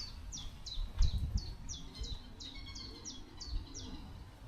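A small bird singing a long run of quick, high notes, each sweeping sharply downward, about three a second, stopping near the end. A low thump about a second in.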